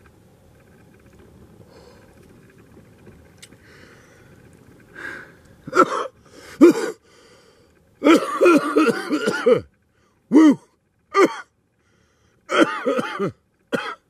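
A man coughing hard after drawing on a smoke. The coughs come in short fits starting about six seconds in, with one longer run of about a second and a half in the middle and single coughs after it.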